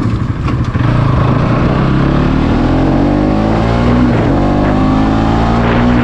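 Motorcycle engine under the rider, heard through a helmet-mounted action camera's built-in mic. The engine note climbs steadily in pitch as the bike accelerates along the path.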